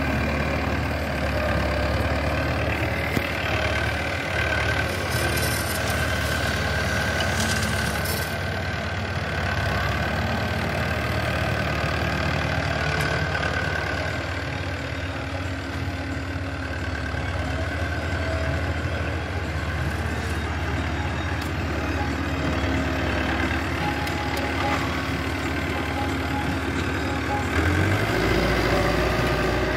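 Farmtrac tractor's diesel engine running steadily under load as it pulls a three-bottom mouldboard plough. Near the end its note rises and gets louder.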